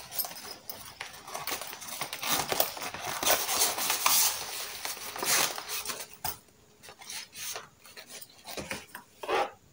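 Plastic bags and pouches rustling and crinkling as packed items are pushed into the side of a suitcase, busiest for the first six seconds, then a few scattered light knocks and rustles.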